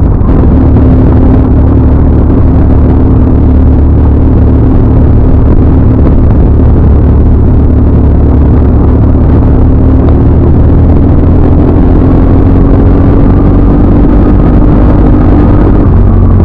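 Motorcycle engine running at cruising speed under heavy wind rumble on the microphone. The engine note climbs slowly through the second half and falls away near the end.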